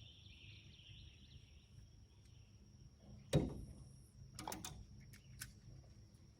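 A single sharp knock about three seconds in, followed a second later by a few lighter clicks, over a faint steady background with a thin high whine.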